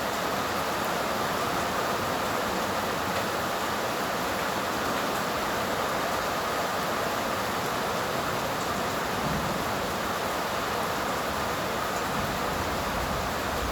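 Rain falling steadily in a summer storm, an even, unbroken hiss.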